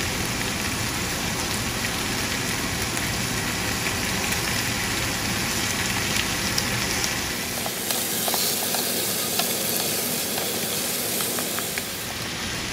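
Onions, potatoes and green peas frying in mustard oil in a wok: a steady sizzling hiss with scattered small crackles.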